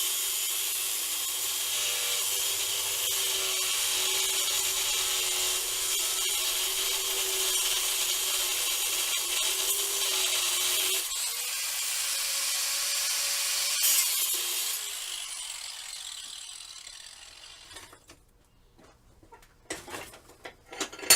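Portable band saw cutting into a steel railroad spike: a steady hiss of the blade over a low motor hum, which dies away and stops about fifteen to eighteen seconds in. A few short metallic clinks follow near the end.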